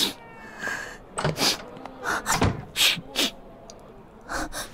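A young woman crying: about ten short, noisy breaths and sobs at uneven intervals, without words.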